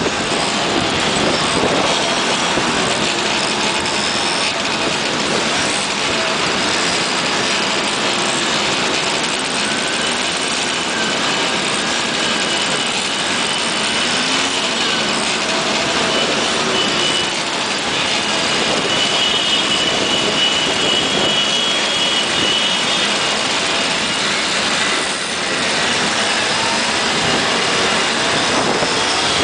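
A convoy of Simson two-stroke mopeds and scooters running along a street: a dense, steady drone of many small engines, with higher engine whines rising above it now and then through the middle.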